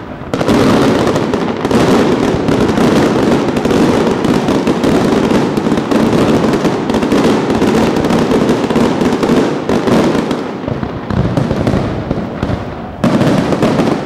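Fireworks going off in a dense, continuous barrage of rapid bangs and crackling. It thins out about ten and a half seconds in, then a fresh loud burst comes near the end.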